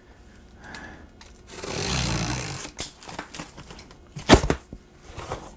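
Cardboard shipping box being opened: a box cutter drawn along the taped seam for about a second, then cardboard flaps rustling and a sharp knock a little after four seconds in.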